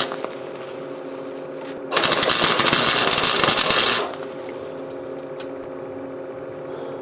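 Electric arc welding crackling in two bursts, welding a nut to the inside of a car frame through slots cut around the bolt hole. The first burst stops just after the start and the second runs for about two seconds from about two seconds in. A steady hum fills the gaps.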